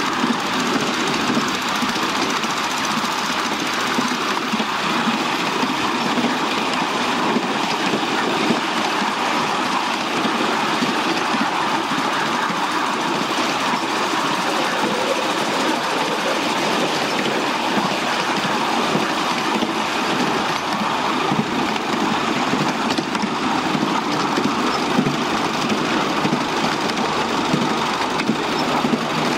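Miniature railway train running steadily along the track, heard from on board: a continuous rattle of the wheels and carriages on the rails, with small frequent clicks.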